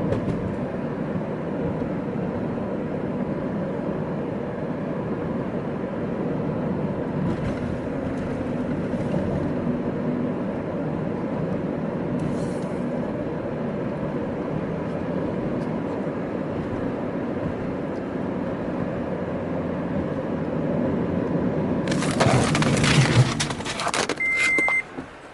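Car driving on the highway, heard from inside the cabin: a steady hum of engine and road noise. Near the end comes a sudden loud burst of noise lasting a couple of seconds, then a short high beep.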